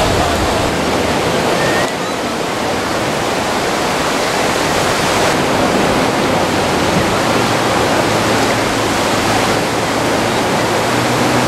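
Sea surf breaking and washing up onto a sandy beach: a steady rush of waves.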